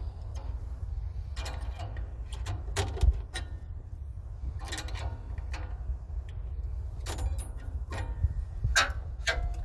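A wrench turning the threaded cable adjuster nut on a garden-tractor plow lift, tightening it to take up the cable: short metallic clicks and scrapes come every second or so as the wrench is worked and repositioned, over a steady low rumble.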